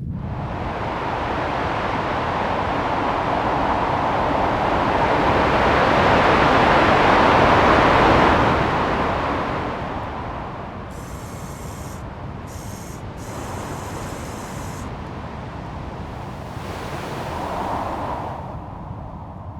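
Martian wind recorded by the Perseverance rover's microphone, processed to sound softer. It swells in gusts, peaking about eight seconds in, easing, and rising again near the end. A faint high whine comes and goes in the middle.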